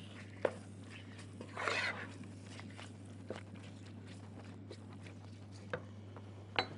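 A wooden spoon stirring pieces of chicken in a hot pan: a few scattered knocks and a short scraping hiss about two seconds in, over a steady low hum.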